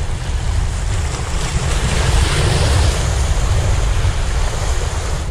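Sea surf washing against the boulders of a rock breakwater, with wind buffeting the microphone. The wash swells about two seconds in, then eases.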